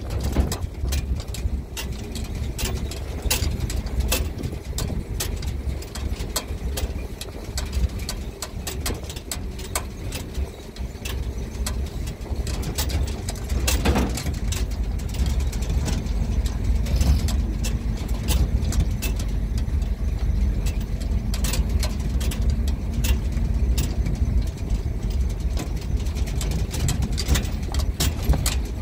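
Pickup truck driving over a rough dirt road, heard from its open cargo bed: a steady low engine and road rumble with frequent sharp knocks and rattles from the metal bed.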